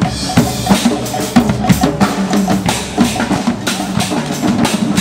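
Drums being played in a steady beat, about three strikes a second.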